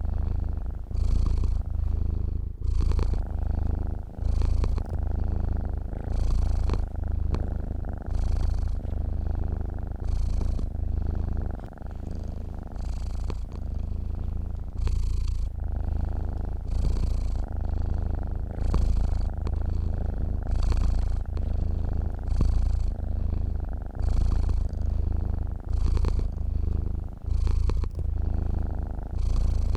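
A domestic cat purring steadily while asleep, a low rumble that swells and eases with each breath, about once every two seconds.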